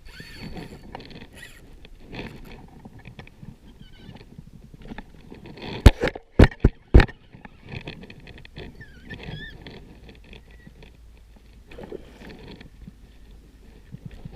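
Four sharp knocks in quick succession, over faint rustling noise.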